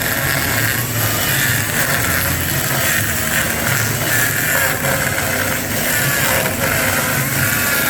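Chainsaw running steadily while cutting a wooden stair stringer, its engine whine wavering slightly in pitch as it works through the wood.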